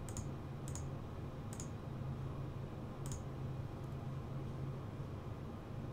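Computer mouse button clicking: about four separate sharp clicks over the first three seconds, with a fainter one later, over a steady low hum.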